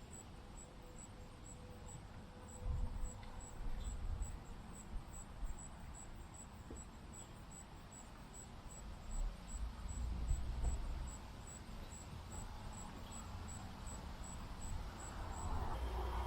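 An insect chirping steadily outdoors, a short high pulse about three times a second, stopping shortly before the end. Irregular low rumbles and thumps run underneath.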